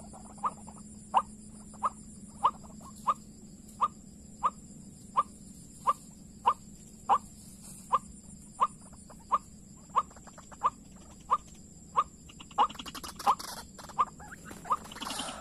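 White-breasted waterhen (ruak-ruak) call: a short, sharp note repeated steadily about every two-thirds of a second, over a faint steady hum. A rustling clatter joins in near the end.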